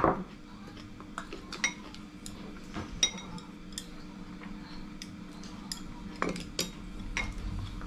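Ceramic tableware knocking on a wooden table and chopsticks clicking against a ceramic rice bowl: a scattering of short, separate clinks and taps. The loudest knock comes right at the start, as a bowl is set down on the table.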